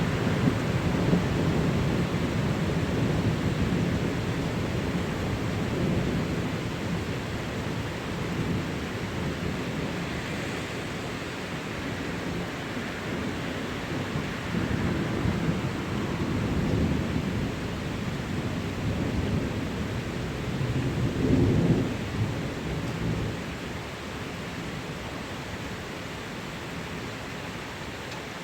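Steady rain with low rolling thunder. The rumble is loudest in the first few seconds and swells again a little after twenty seconds, then eases.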